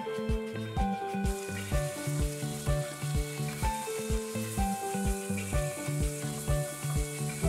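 Raw prawns sizzling in a hot frying pan on high heat, the hiss coming in about a second in, over background music with a steady beat.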